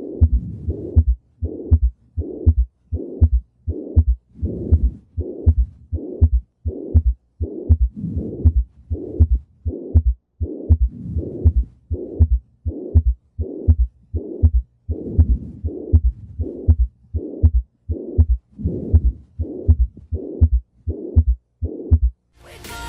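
Heart sounds heard through a stethoscope with the typical murmur of mitral regurgitation: a blowing murmur fills each beat between the heart sounds. The beats come steadily at about one and a half a second.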